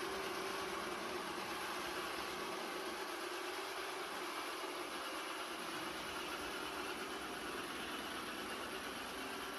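Steady machine hum with a faint constant tone, unchanging throughout.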